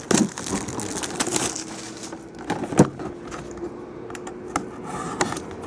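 Plastic shrink wrap crackling and crinkling as it is pulled off a cardboard box, with the box being handled, and one sharp knock a little under three seconds in.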